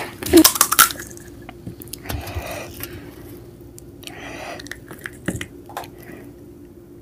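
Close-miked eating of a panipuri: sharp crisp crunching in the first second, then softer wet chewing and squishing.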